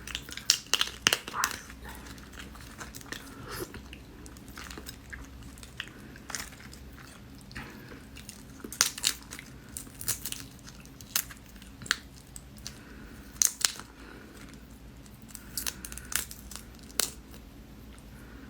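Close-up eating sounds of seafood boil: wet chewing, biting and slurping with sharp crackling smacks, loudest in clusters near the start and several times later.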